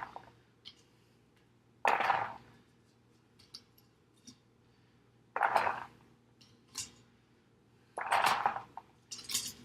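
Hard-boiled eggs being moved from an Instant Pot into an ice bath: three short clattering bursts about three seconds apart, with a few light clicks in between.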